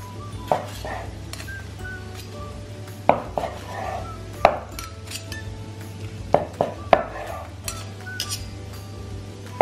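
Chef's knife and carving fork knocking against a wooden cutting board while slicing braised lamb. Several sharp knocks come at uneven intervals, the loudest about four and a half seconds in.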